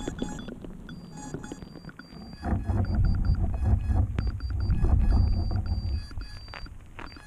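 Underwater sound picked up by the camera on a sunken FPV quadcopter: a low, muffled rumbling of water that swells loud about two and a half seconds in, with scattered knocks and short high electronic beeps coming and going.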